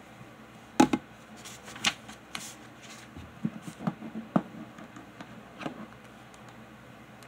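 Irregular short clicks and light knocks, a loud pair about a second in and smaller ones scattered through the middle.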